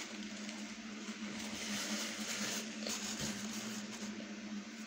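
A steady low hum with faint, irregular eating sounds: a person chewing fried food.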